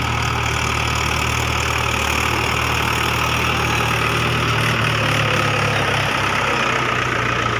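Mahindra 415 DI tractor's four-cylinder diesel engine running steadily as it hauls a full water tanker through mud. The low drone weakens a little about five seconds in as the tractor goes past.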